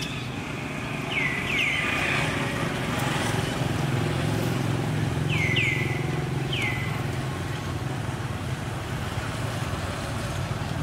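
Steady low hum of a motor vehicle's engine running in the background, swelling a little around the middle. Over it come short, high, downward-sliding chirps: a pair about a second in, another pair around five seconds, and a single one shortly after.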